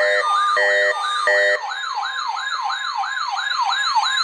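Electronic yelp siren wailing rapidly up and down, about three sweeps a second. In the first second and a half it is joined by three short horn-like blasts.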